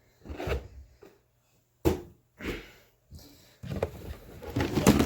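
Taps and rustling of an inflated balloon being batted about by hand, with one sharp tap about two seconds in and a busier run of hits and handling noise near the end.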